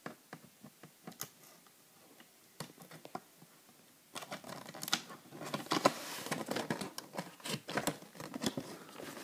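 Stiff plastic and cardboard packaging of a model car's windowed display box being pulled and peeled by hand. It starts with a few scattered light clicks, then from about four seconds in turns into a denser run of crinkling and crackling plastic.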